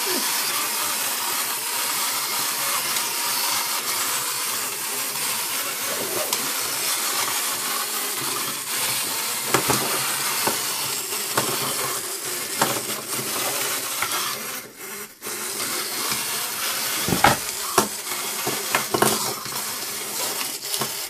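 Clockwork motors of two wind-up plastic toys, a Pac-Man and a ghost, running down with a steady whirring buzz as they walk on a tabletop. A few sharp knocks cut in, the loudest about two-thirds through.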